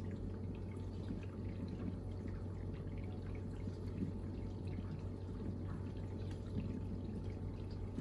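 Bosch dishwasher running mid-cycle on its Pots and Pans 70°C programme: a steady low pump hum under water spraying and splashing inside the tub, with small scattered ticks of drops.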